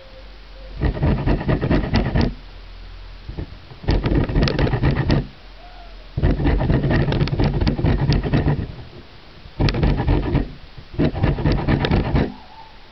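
Bergamot orange rind being grated on the metal teeth of a box grater: five bursts of quick rasping strokes, each a second or two long, with short pauses between.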